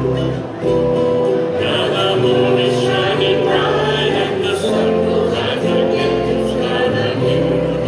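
Glee club singing a Hawaiian song, with a male soloist singing at the microphone and the group joining in.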